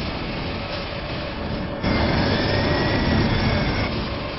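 Road and engine noise inside a moving car. About two seconds in it suddenly grows louder, with a heavier rumble and a thin whine that bends up and down for about two seconds, as a low-flying airplane closes in behind the car.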